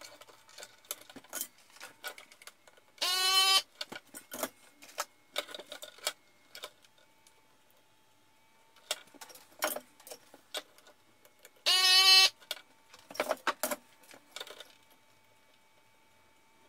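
Light clicks and small metallic rattles of hands and tools working in an open radio receiver chassis while a soldering iron resolders a power-supply smoothing capacitor. Two short, loud pitched beeps sound about nine seconds apart.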